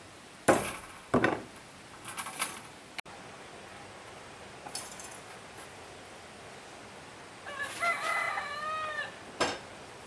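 A rooster crows once, for about a second and a half, near the end. Several sharp knocks come earlier, the loudest two in the first second and a half, with one more just after the crow.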